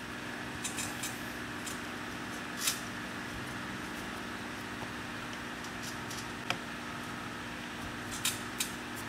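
Scattered light clicks and scuffs as a rubber steering-column floor seal is stretched by hand around the column's shift and linkage levers, over a steady low machine hum with two held tones.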